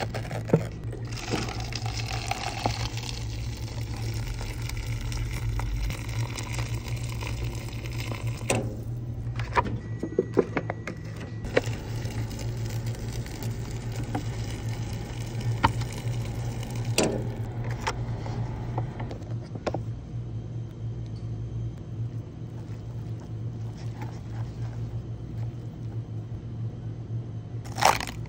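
Cup-noodle packaging being handled: the paper-and-foil lid peeled back from the cup, with scattered taps, clicks and scraping over a steady low hum. A sharp tearing of a lid near the end is the loudest sound.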